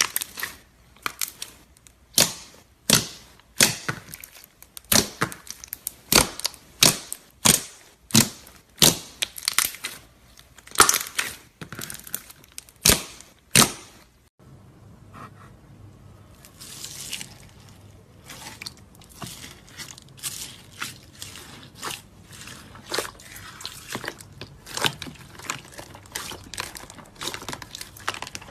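Slime being squeezed and pressed, giving sharp wet pops about one to two a second. About halfway through these change to softer, quicker squishing and crackling.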